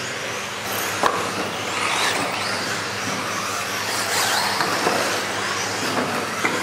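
Several radio-controlled touring cars racing on a hall floor: their motors whine up and down as they accelerate and brake, over a steady hiss of tyres. There is a sharp knock about a second in and another near the end, as cars hit the track boards or tumble.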